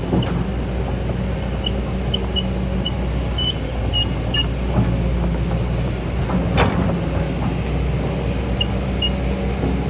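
Excavator's diesel engine running steadily under digging work, with a few sharp knocks, the loudest about two-thirds of the way in, and scattered short high chirps.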